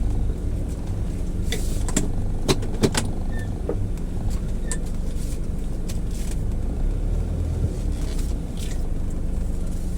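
Car engine running steadily, with a handful of sharp clicks and knocks over the first few seconds and one more near the end.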